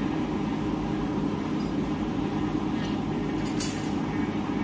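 Steady mechanical hum of a 2800 automatic tissue paper slitting and rewinding machine running, with a brief hiss about three and a half seconds in.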